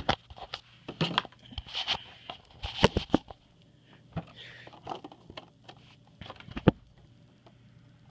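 Rubik's Cube packaging being handled and pulled apart: irregular plastic and cardboard clicks, taps and crackles, with a sharper knock about three seconds in and again near the end.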